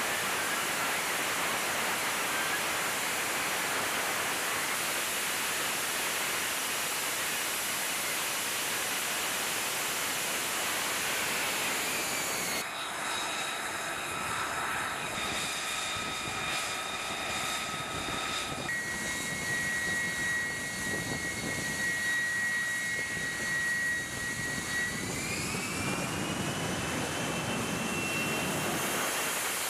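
F-35B's F135 jet engine and lift fan running in hover: a steady jet noise at first, then, after an abrupt change about halfway through, a high whine of several steady tones. Near the end the whine rises in pitch.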